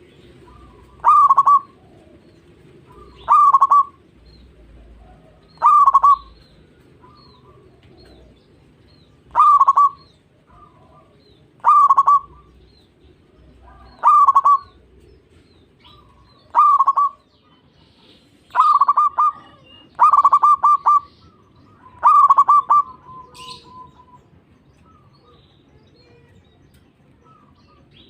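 Zebra dove (perkutut) cooing: about ten short rolling coo phrases, one every couple of seconds, the last few coming closer together before the calls stop about two-thirds of the way through.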